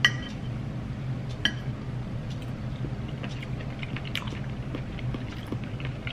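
Knife and fork clinking against a plate while cutting cooked octopus: a few sharp clinks, the loudest right at the start, others about a second and a half and four seconds in. A steady low hum runs underneath.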